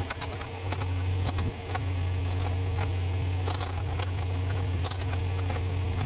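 Mini excavator's diesel engine running with a steady low drone, with irregular clicks and scrapes as its bucket digs into dry soil.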